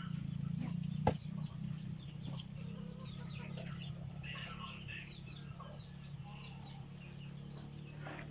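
Chickens clucking and peeping over a steady low hum, with a sharp click about a second in.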